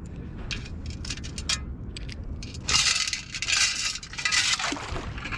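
Metal detecting sand scoop being shaken and sifted: small metal finds clinking in the basket, then a few loud rushing bursts about halfway through as sand and water sift out through the holes.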